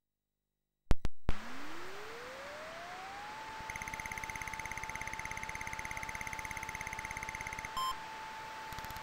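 Commodore 64 SID chip sound effects: a few sharp clicks, then a tone gliding up and settling into a steady high tone. A rapid pulsing buzz runs over it for about four seconds, with a short beep near the end, while the demo's mock memory test counts up to '64K RAM OK'.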